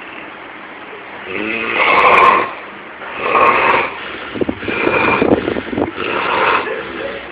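A person snoring loudly: a run of snores about one a second, beginning after a quieter first second, with the first snore the loudest.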